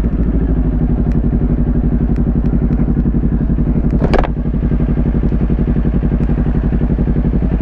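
Kawasaki Ninja 400's parallel-twin engine idling through a Leo Vince GP Corsa slip-on exhaust, a loud, steady, evenly pulsing exhaust note. A short rising high-pitched sound cuts in briefly about four seconds in.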